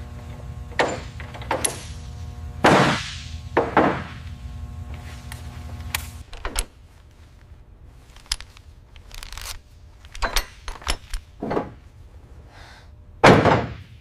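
Workshop tool sounds: irregular metallic clanks and knocks of wrenches working on a hydraulic valve block, with a run of quicker small clicks in the second half and the loudest knock near the end. A low steady hum runs beneath and cuts off about six seconds in.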